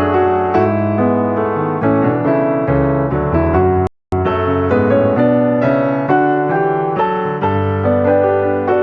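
Background piano music, a steady run of notes that cuts out for an instant about four seconds in.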